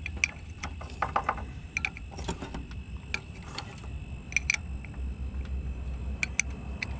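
Spanner working a 17mm nut anti-clockwise on a trailer handbrake cable adjusting bolt, loosening off the cable: irregular sharp metallic clicks, a dozen or so spread across several seconds, some in quick pairs, over a low steady rumble.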